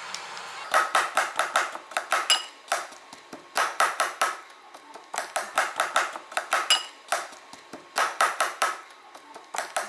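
Knife chopping garlic on a cutting board: quick runs of sharp taps, several a second, broken by short pauses.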